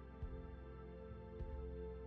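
Background music: calm ambient-style music with held tones and a soft low beat about every second and a bit.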